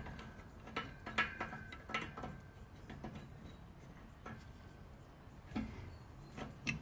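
Grips handled against a rusted rivet bolt on a car's exhaust flexi pipe: a few scattered, faint metal clicks and scrapes at irregular spacing.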